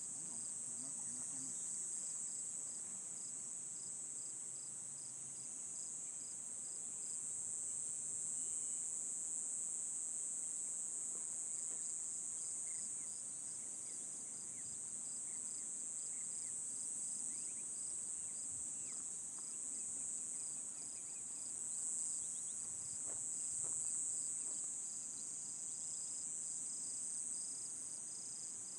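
Outdoor insect chorus: a steady, high-pitched drone from many insects, with a second insect chirping in an even run of several pulses a second that breaks off for a few seconds partway through and then resumes.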